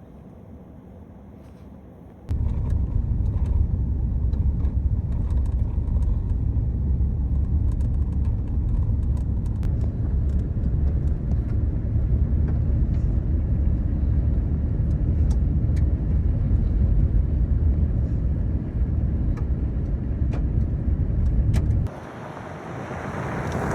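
Steady low road-and-engine rumble of a car on the move. The rumble cuts in about two seconds in after a quieter stretch, and near the end it drops away while a rising hiss builds.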